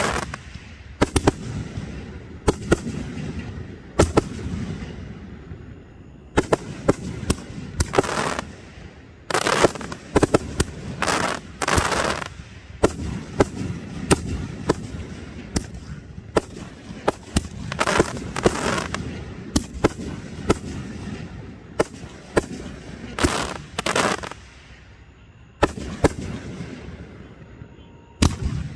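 An aerial fireworks display: firework shells burst in quick succession as sharp bangs, sometimes several a second, mixed with longer noisy bursts of up to about a second, over a continuous low rumble. Near the end there is a brief lull before the bangs resume.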